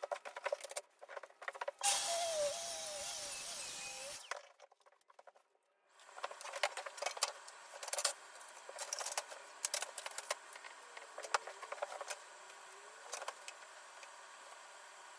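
Workshop power tool running for about two seconds, its pitch wavering, then after a short pause many scattered clicks and knocks of hand work with tools and wood.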